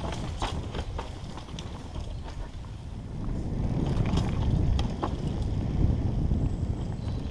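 Downhill mountain bike riding fast down a dirt forest trail: wind rush on the camera microphone and tyre rumble, with scattered clicks and clatter from the bike over bumps, louder past the middle.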